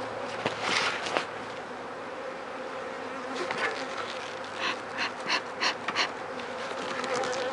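Honeybees buzzing steadily around the hive, with short airy puffs from a bee smoker's bellows: a few about a second in, then a quick run of about five near the middle.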